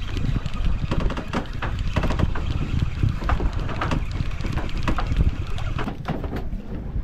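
Wind buffeting the microphone aboard a fishing boat at sea, a heavy low rumble with scattered short knocks.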